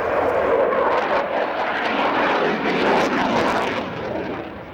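Display aircraft flying past, a loud engine rush that builds and then falls away near the end.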